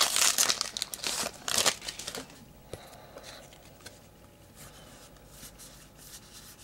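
Trading-card pack wrapper crinkling and tearing as it is ripped open, loudest in the first two seconds. Then faint rustling as the cards are slid out and handled.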